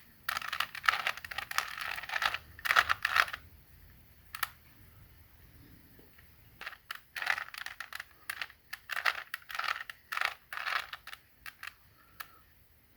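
Rubik's Cube being turned by hand: the plastic pieces click and clack in quick runs of turns, with a pause of about three seconds a little way in.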